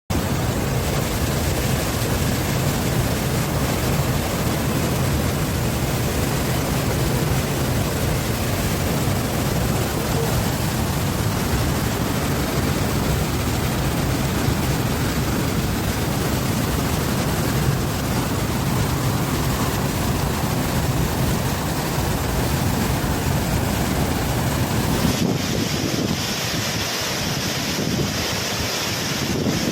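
Waterfall in heavy flood: a loud, steady rush of falling water. About 25 seconds in, the deep rumble drops away and a higher hiss comes to the fore.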